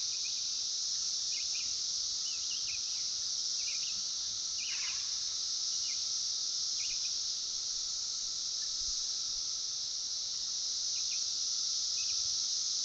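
Steady, high-pitched drone of an insect chorus, with short bird chirps scattered through it and one longer falling call about five seconds in.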